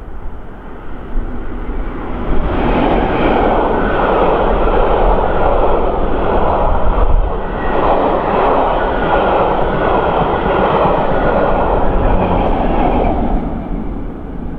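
A passenger train hauled by a Class 60 diesel locomotive passing at speed: the locomotive's engine comes up loud about two seconds in, then the steady wheel-on-rail noise of the coaches running past, fading away near the end.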